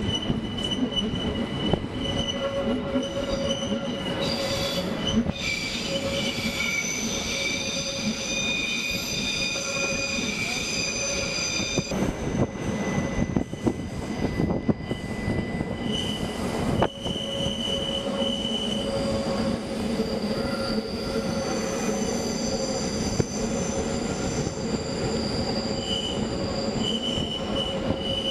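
Wheels of a red Rhaetian Railway train squealing as it takes a tight curve: several high, held squeal tones over the rumble of the running carriage. The squeal drops away about halfway through and comes back a few seconds later.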